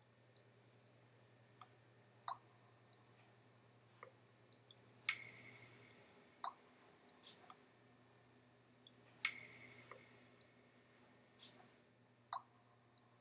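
Faint, scattered drip-like plinks and clicks at uneven intervals. Two louder ones, about five and nine seconds in, ring on briefly. A low steady hum runs underneath.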